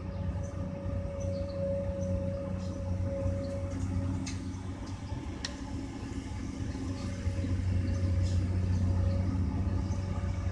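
Komatsu PC200-8 excavator's diesel engine running beside a dump truck, with a steady high whine that fades out partway through and comes back. Two sharp knocks come around four and five and a half seconds in, and the engine grows louder in the second half as the boom and bucket work.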